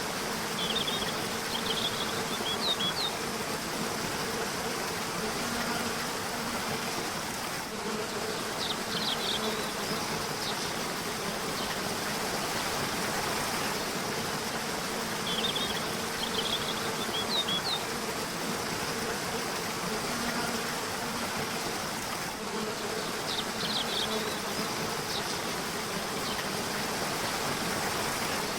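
Steady rush of flowing river water with a low, steady buzz underneath. Short bursts of high bird chirps come four times, about every seven seconds.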